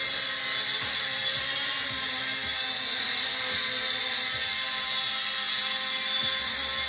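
Motors and propellers of a small, cheap Blizzard quadcopter drone whirring in flight, a steady high whine.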